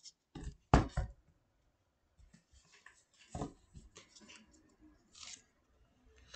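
A deck of oracle cards being shuffled by hand: a few sharp card snaps in the first second, then softer scattered rustles and taps of the cards.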